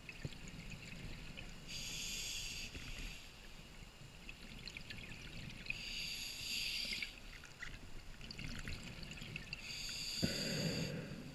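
Scuba diver breathing through a demand regulator underwater. Three hissing inhalations come about four seconds apart, and a low rush of exhaled bubbles follows near the end.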